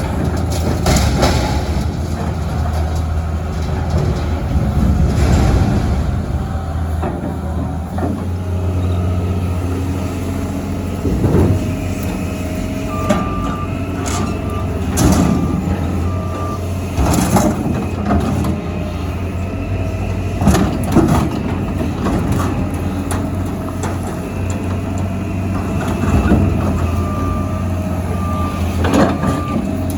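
Heavy machinery engine running steadily, with repeated metal clanks and knocks. A reversing alarm beeps in two spells, one near the middle and one near the end.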